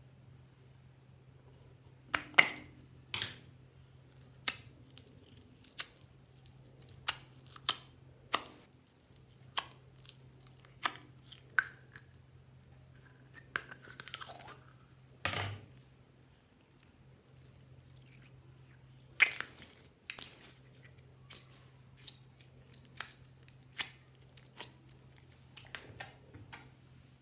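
Slime being squeezed, stretched and pressed by hand, giving irregular sticky pops and clicks, with a short crackly stretch about halfway, over a faint steady low hum.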